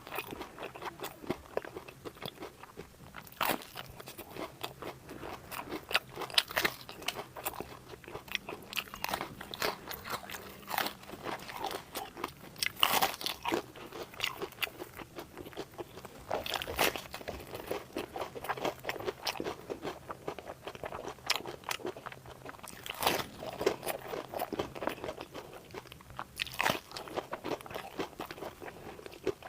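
Close-up eating sounds: crunchy food being bitten and chewed, a steady run of small crackles with sharper, louder crunches every few seconds.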